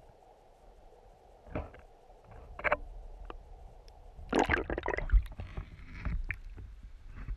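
River water heard from inside a GoPro's waterproof housing: a faint, steady, muffled noise with a few knocks against the housing, then louder sloshing, bumping and splashing just after four seconds in as the camera on its wooden pole is lifted up through the surface.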